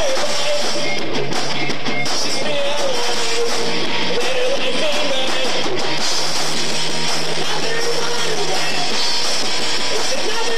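A rock band playing live, loud and continuous, on electric guitars and a drum kit.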